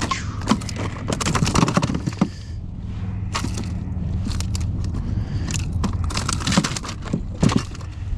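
Irregular clicks and knocks as a yellow jack is unhooked on a plastic kayak deck: the fish, lure and hook tapping and clattering against the hull, in two busy spells with a lull in the middle. A steady low rumble runs underneath.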